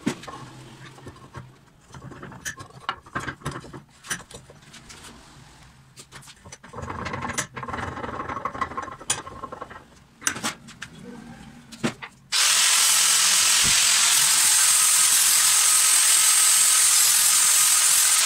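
Scattered metal clicks and knocks as the bench vise is handled, then about twelve seconds in an angle grinder starts suddenly and runs steadily and loudly against the steel vise, a high whine with a strong hiss.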